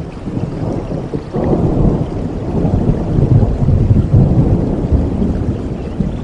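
Rolling thunder over steady rain: a deep rumble builds about a second in, swells for a few seconds, then eases near the end.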